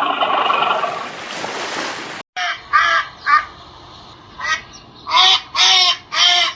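A harsh, drawn-out animal call, then after a sudden cut a run of about seven short calls, each rising and falling in pitch, the later ones loudest.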